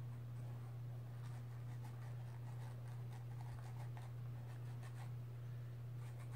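Paintbrush brushing faintly on a small canvas in short strokes, over a steady low hum.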